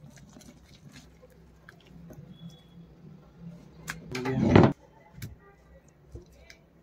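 Metal spoon stirring a thick marinade in a glass bowl, with light clicks of the spoon against the glass. Just past four seconds in comes a louder rushing scrape of about half a second that builds and stops suddenly. Near the end a gloved hand squishes the mixture.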